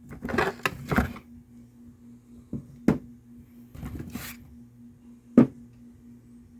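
Boxes and packages of firecrackers being handled: rustling with several sharp knocks, the busiest in the first second, over a steady low hum.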